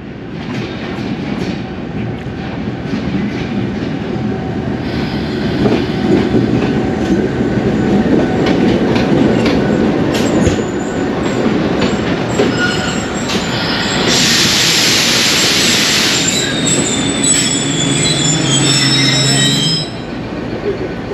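Diesel-hauled passenger train rolling into a station and slowing, with wheels rumbling and clattering and brakes squealing. A loud hiss comes about two-thirds of the way through, and the noise drops off sharply near the end as the train comes to its stop.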